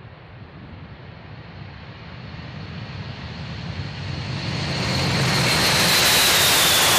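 B-52 bomber's eight jet engines at takeoff thrust as it rolls down the runway and passes by, growing steadily louder. A high whine rides over the noise and slides down in pitch near the end as the bomber goes by.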